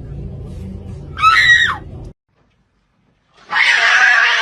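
Animal cries: a short wavering, pitched call, then, after a brief cut to silence, a loud harsh screech lasting about a second.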